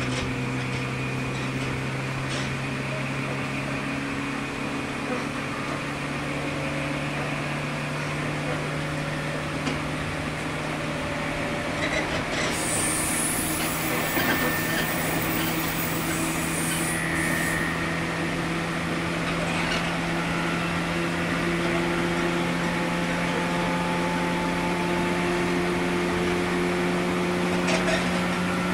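JR 103 series electric train running, heard from on board: the steady whine of its MT55 traction motors rises slowly in pitch as the train gathers speed, over a constant rumble of wheels on rail. A high hiss joins in for several seconds about halfway through.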